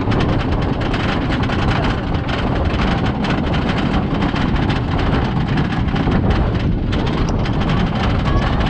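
Great Coasters International wooden roller coaster train being hauled up its chain lift hill: the lift chain and the train's ratcheting anti-rollback dogs clatter in a rapid run of clicks over a steady low rumble.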